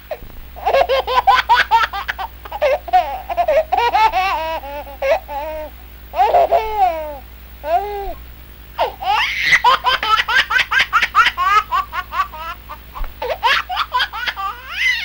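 High-pitched laughter in quick repeated bursts, with a short lull about halfway through before it picks up again.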